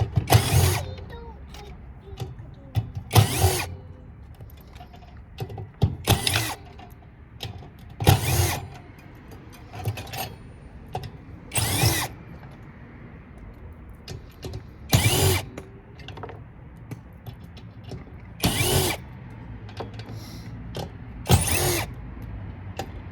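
A power drill/driver backing out screws from a metal power supply board in short bursts, about eight of them, each roughly half a second long and a few seconds apart, its motor whine rising and falling with each burst.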